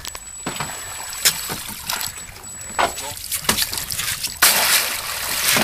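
Water sloshing and splashing at the side of a boat as a plastic crate is dipped over the side, with a few sharp knocks and clatters. The splashing is loudest near the end.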